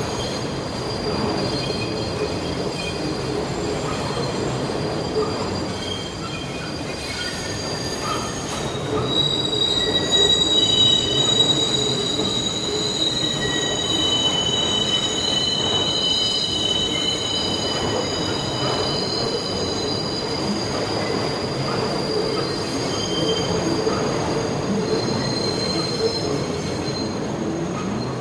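Elevated subway train running on steel track, a continuous rumble with high-pitched wheel squeal, several shrill tones at once that are loudest in the middle.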